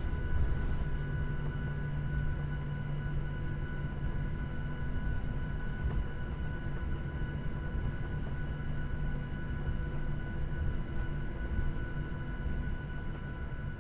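Boeing 737 heard from inside the passenger cabin while taxiing: the jet engines give a steady whine over a low rumble, and a low hum drops out about eleven seconds in.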